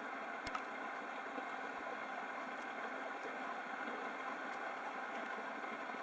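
Faint steady hiss with a few soft clicks from hands handling the furnace igniter's wires and connector.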